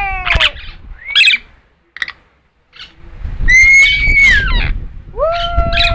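Amazon parrot calling: a short squawk about a second in, then after a brief quiet, two long drawn-out calls that each hold a steady pitch and then slide downward.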